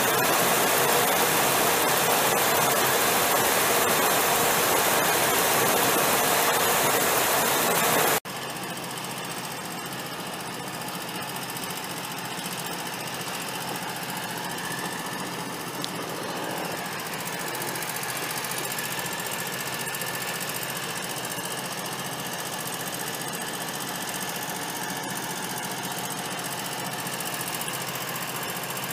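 Ford 6.8-litre V10 gasoline engine running steadily. It is loud and close for about the first eight seconds, then after a sudden cut it runs on more quietly.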